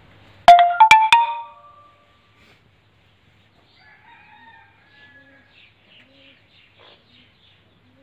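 A rooster crows once, loud and close, starting about half a second in and lasting just over a second, its pitch stepping up and then dropping at the end.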